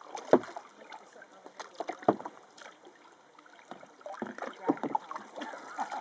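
Canoe being paddled: paddle blades dipping and splashing in calm water, with two sharp knocks, one just after the start and one about two seconds in.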